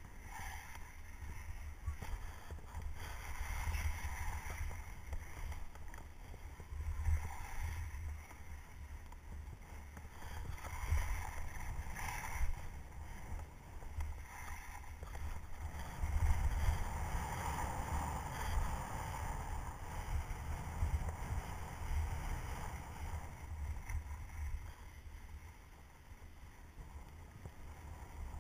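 Skis hissing and scraping over packed snow while skiing downhill, swelling and easing every second or two through the turns. A heavy low rumble of wind buffets the microphone throughout.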